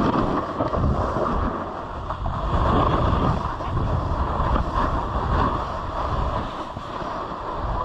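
Snowboard sliding and scraping over chopped-up snow, swelling and easing every second or two through the turns, with wind buffeting the camera microphone.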